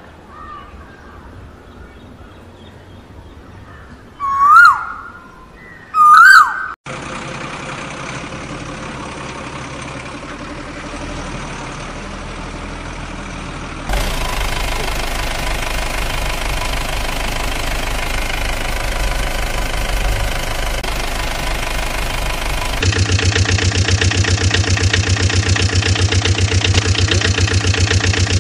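Two loud whistle-like calls rising and falling, then a vehicle engine running, which twice changes abruptly to a louder sound. The loudest part, near the end, has a fast, even knocking beat.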